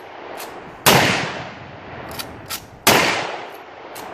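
Two shots from BigHorn Armory lever-action rifles in .500 Smith & Wesson, about two seconds apart, each echoing away over about a second. Lighter sharp clicks fall between the shots as the lever actions are worked.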